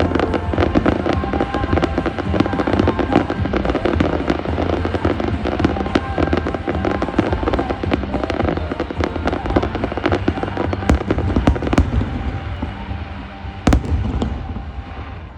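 Fireworks display: dense, rapid crackling and popping of bursting shells over a music soundtrack, with one loud bang near the end.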